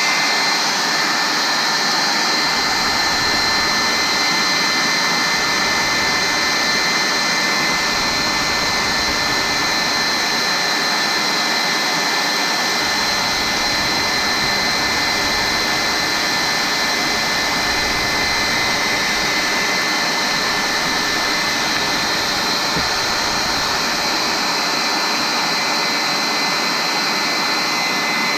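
Handheld hair dryer running steadily: a rush of blown air with a steady high-pitched motor whine on top.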